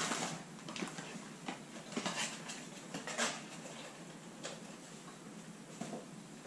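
Light, scattered clicks, clinks and rustles of kitchen items being handled on a counter, with a few sharper clinks about two and three seconds in.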